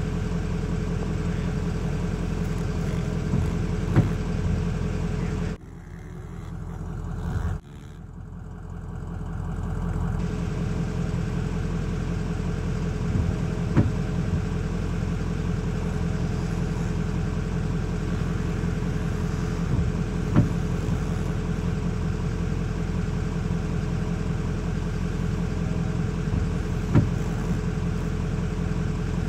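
Small single-cylinder four-stroke pit bike engines running on a dirt track, a steady engine drone with a few sharp clicks. About five seconds in, the sound drops away suddenly and builds back over the next few seconds.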